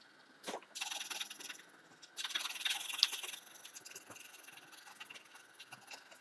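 Colouring in on paper: a click about half a second in, then fast back-and-forth scratching of the colouring tip on the paper, pausing briefly near two seconds before going on more densely.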